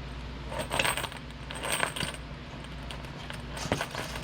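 Metal tailgate chain links clinking and jingling as the chain is handled and pulled along, in three short clusters of clicks.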